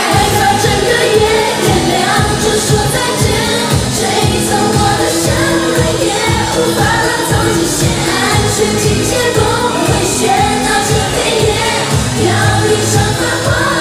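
Pop song performed live by a girl group: several women's voices sing into microphones over a backing track with a steady beat.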